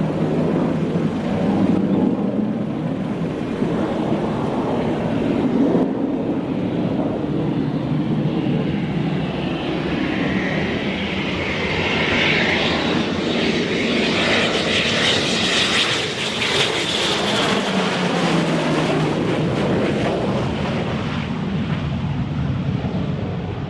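Mirage 2000 jet fighters flying past in formation: a continuous jet roar that grows harsher and higher toward the middle as they pass closest, then eases off.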